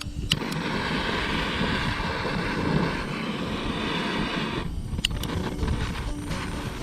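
Strong wind gusting and buffeting the microphone in a steady, rumbling rush, with a couple of sharp clicks about five seconds in.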